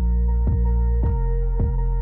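Music with sustained tones over a steady beat of about two strokes a second.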